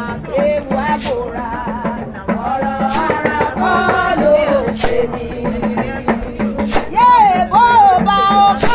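A group of women singing a welcome song together, shaking shekere (beaded gourd rattles) in time, with sharp rattle accents about every two seconds.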